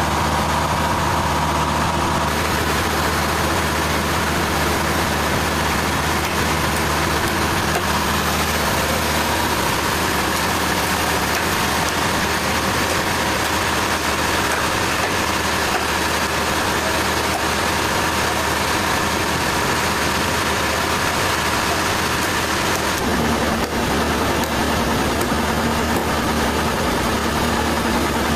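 Sawmill machinery running steadily: an engine hum under a constant saw tone, the mix changing about two seconds in and again near the end.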